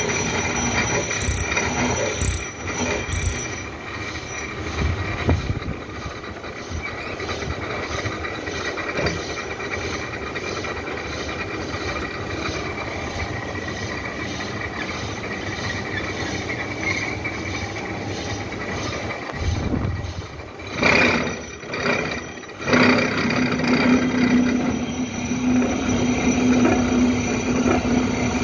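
Milling machine running, its toothed disc cutter cutting tooth slots into a steel dog clutch: a steady metal-cutting chatter over the machine's running noise. It is quieter through the middle, surges a few times about three quarters of the way in, and then runs louder again with a steady low hum.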